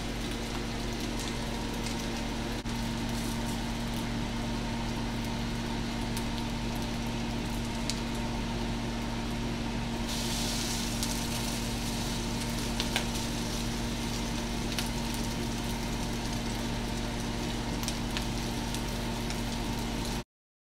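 Rice cakes frying in a nonstick pan: a steady sizzle over a constant low hum, with a few light taps of a spatula. About halfway through a cake is flipped and the sizzle turns brighter and louder. The sound cuts off suddenly just before the end.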